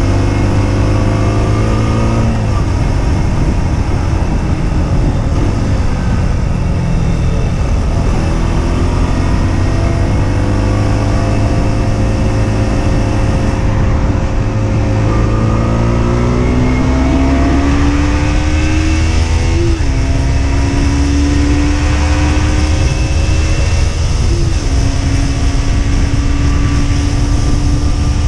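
Husqvarna Svartpilen 125's single-cylinder engine pulling under way, its revs climbing and then dropping sharply at gear changes three times, over a steady rush of wind.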